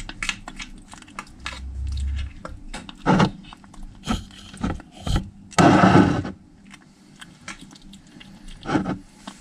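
Small kitten eating wet cat food from a plastic bowl, with quick little chewing and lapping clicks. A spoon scrapes more food into the bowl, loudest about six seconds in.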